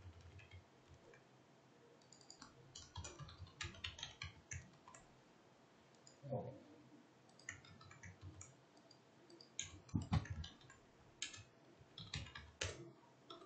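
Computer keyboard keys clicking in short bursts of typing, separated by pauses of a second or two.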